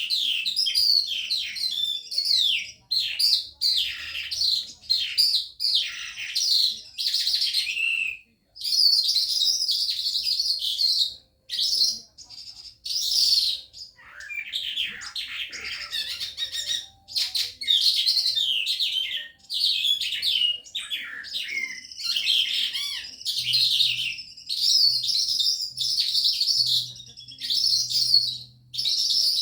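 Calandra lark singing a long, varied song of rapid chirps, trills and mimicked notes, pausing briefly about 8 and 11 seconds in.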